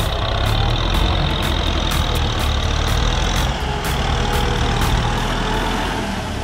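Kubota M6040 tractor's four-cylinder diesel engine running steadily under load as its front blade pushes wet soil and mud.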